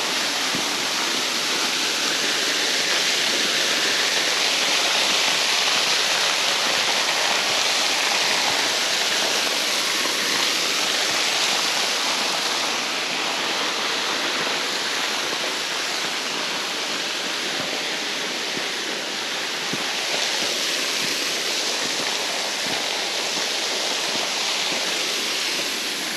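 Waterfall running: a steady, dense rush of falling water, its tone shifting slightly about halfway through.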